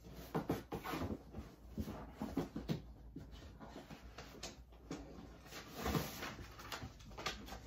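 Clothes and plastic bags rustling and crinkling as hands rummage through a cardboard shipping box, with irregular light knocks and scuffs against the box.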